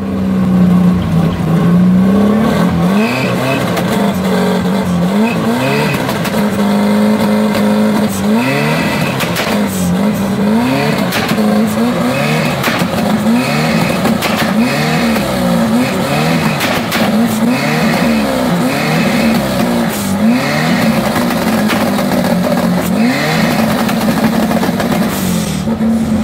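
An engine running loud, its pitch rising and falling again and again as the throttle is blipped and released.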